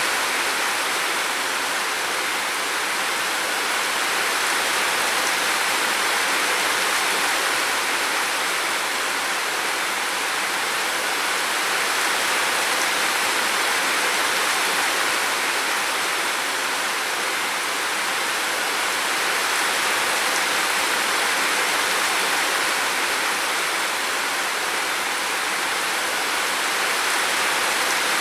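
Steady, even hiss of running water, constant in level with no separate drops or splashes standing out.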